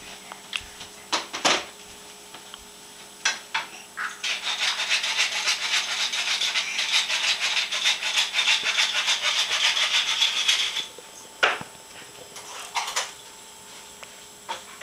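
A young child flicking a finger against his lips to make a rapid fluttering 'blup-blup-blup' sound. It runs for about six seconds in the middle, with a few separate lip smacks and clicks before and after.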